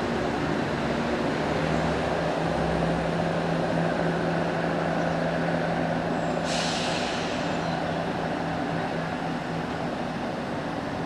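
Chiltern Railways Class 168 diesel multiple unit's underfloor diesel engines running as the train pulls away, steady and slowly fading. About six and a half seconds in comes a sudden hiss of released air that dies away over about a second.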